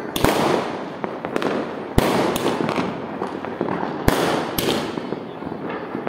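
Fireworks going off: a sharp bang just after the start, another about two seconds in, and two more a little past four seconds, over continuous crackling between them.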